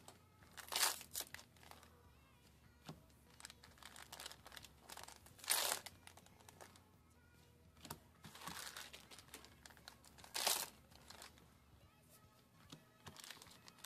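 Foil trading-card booster packs crinkling and being torn open by hand, in irregular rustles with four louder bursts spread through.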